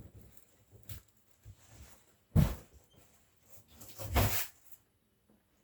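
A few knocks and rustles from handling unboxed equipment and packing, with a sharp thump about two and a half seconds in and a rougher scraping burst a little after four seconds.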